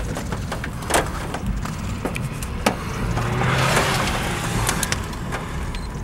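Strong wind rumbling on the microphone, with scattered sharp ticks of impacts throughout. About three and a half seconds in, a vehicle's rushing noise and low hum swell, then fade after about a second.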